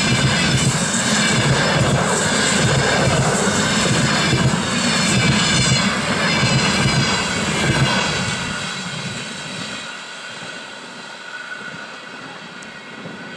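Coaches of a passenger train passing at speed close by: the wheels run on the rails under a loud rushing noise. About eight seconds in the last coach goes by and the sound fades away as the train recedes.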